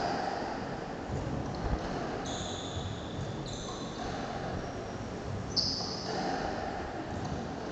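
Squash rally: a few sharp hits of the ball off racket and walls, with rubber-soled shoes squeaking briefly on the wooden court floor.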